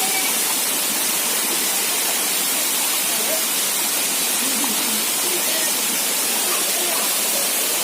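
Small waterfall: water pouring and splashing steadily, a constant rushing hiss.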